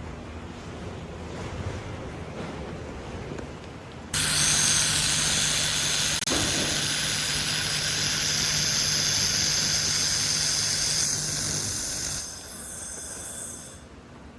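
1.5 kW handheld fiber laser firing on steel: a loud hiss starts abruptly about four seconds in, holds steady for about eight seconds, then falters and dies away near the end. A low, quiet hum comes before it.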